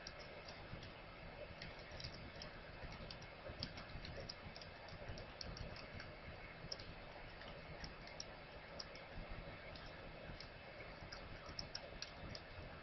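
Faint typing on a computer keyboard: irregular, quick keystroke clicks as a line of text is entered.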